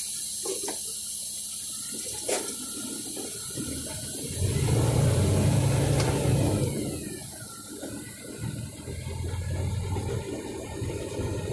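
Inside a semi-truck cab: a steady rushing hiss throughout, with the diesel engine's low rumble coming up about four seconds in as the truck pulls forward and turns, easing briefly and then building again near the end.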